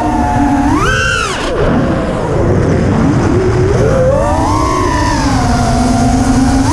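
FPV racing quadcopter's four brushless motors (T-Motor F60Pro II spinning 5-inch props) whining, the pitch surging up and falling back with each throttle punch: up about a second in, again around the middle, and sharply at the end. A low rushing noise runs underneath.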